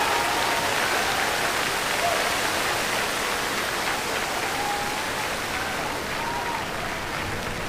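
Falcon 9's nine Merlin engines at liftoff, a steady rushing roar mixed with crowd applause and cheering, easing slightly towards the end.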